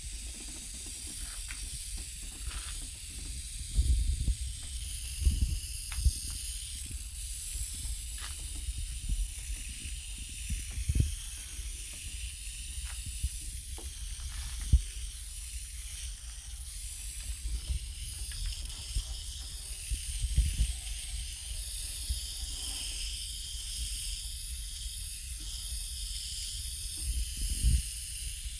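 Steady hiss of a fine water spray from a hose nozzle showering over potted succulents. A few dull thumps come and go, scattered through it.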